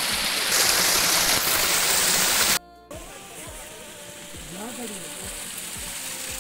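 Water splashing steadily down a small stone cascade into a garden pond, a loud hiss that cuts off abruptly about two and a half seconds in. Quieter background music with a steady beat follows.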